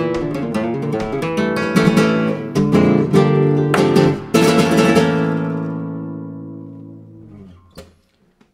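Flamenco guitar playing the close of a tangos, with quick strummed chords and single-note runs. About four seconds in it ends on a final chord that rings out and fades, followed by two faint taps near the end.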